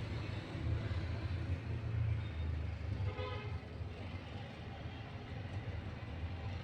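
Low, steady rumble of distant road traffic, with a short faint horn-like toot about three seconds in.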